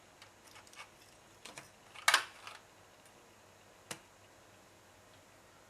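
A few faint clicks and taps, then a louder clattering click just after two seconds and one sharp click near four seconds.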